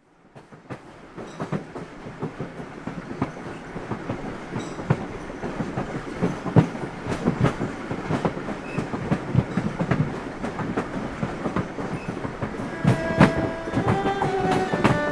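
Train wheels running over the rails with a steady clickety-clack and the clicks and rattles of the carriage, fading in from silence and growing louder. A few sustained tones come in near the end.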